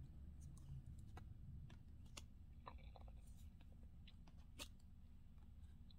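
Near silence: faint, scattered clicks and soft rustles of tarot cards being handled and slid from one card to the next, over a low steady hum.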